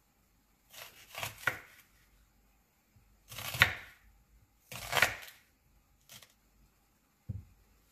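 Kitchen knife slicing through a red onion on a wooden cutting board: three crisp slicing strokes, each cutting through to the board, then two light taps near the end.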